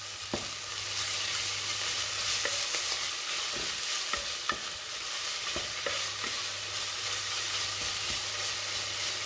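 Sliced red onions sizzling in vegetable oil in a stainless steel pot while a wooden spoon stirs them, knocking lightly against the pot now and then. A low steady hum runs underneath and drops out for a couple of seconds midway.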